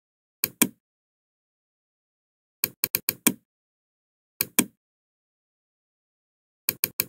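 Sharp clicks of a computer mouse, in pairs and quick runs of four, with dead silence between them.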